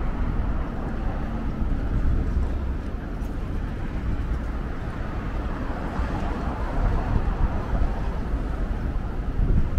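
Steady city traffic noise: a low, even rumble of road vehicles with no single event standing out.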